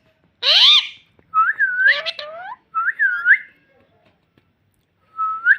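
Pet parrot whistling: several bursts of rising and falling whistled notes, then a pause of about two seconds before another starts near the end.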